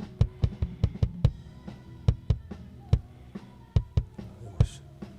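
Soloed kick drum microphone channel from a live band's multitrack recording: a quick, uneven run of deep kick hits, with faint spill from other instruments underneath.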